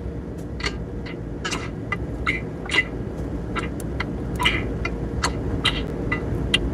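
Irregular short clicks and chirps, several a second, over a steady low rumble: glitching sound output from ChatGPT's voice mode, which the owner takes for the AI retooling itself.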